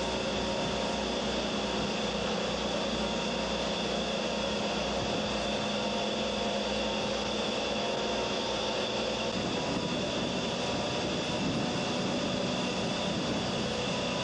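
Steady, loud engine drone with a constant hum from the ARKTOS amphibious evacuation craft running in the rig's launch bay; the low rumble changes character about nine seconds in.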